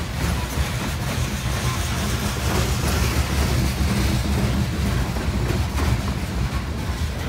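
Coal train hopper cars rolling past: a steady low rumble of steel wheels on the rails.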